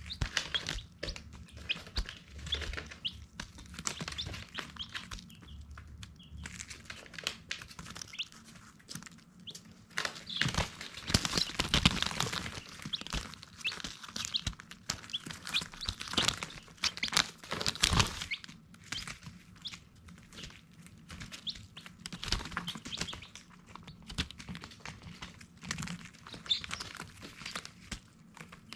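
Baby chicks peeping, many short high chirps overlapping, with short taps among them, busiest and loudest in the middle.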